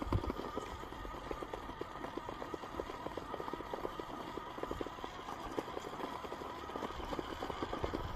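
Class 2 RC rock crawler driving over rock: a faint steady electric-motor whine under rapid, continuous crunching and clicking from tyres and drivetrain.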